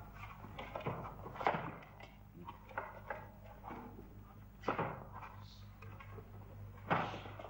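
Old film soundtrack with a steady low hum under scattered rustles and movement noises. Three short louder knocks or bumps come about a second and a half in, near five seconds, and near the end.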